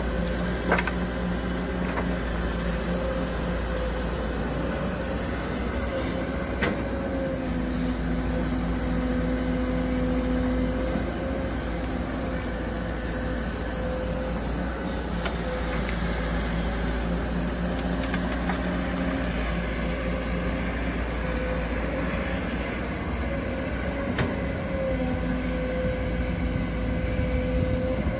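Kobelco hydraulic excavator's diesel engine running steadily while it digs and loads soil, its note shifting now and then under load. A few sharp knocks stand out, about a second in, at two seconds and near seven seconds.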